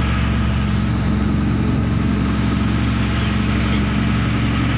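Fishing boat's engine running steadily under way, a low even drone, with the rushing wash of the wake churning behind the stern.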